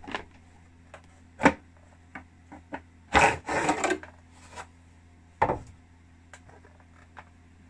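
Blade scabbard being pulled off a Black & Decker GT350 hedge trimmer while the tool is handled, motor off: a few sharp knocks and clicks, with a scraping rub of about a second as the cover slides off the toothed blade. A faint low hum sits underneath.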